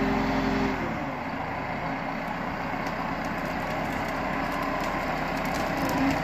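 Valtra N154e harvester tractor's diesel engine and crane hydraulics running. About a second in the steady whine drops away as the revs fall, and the engine runs on at a lower, idling note, with a few light clicks near the end.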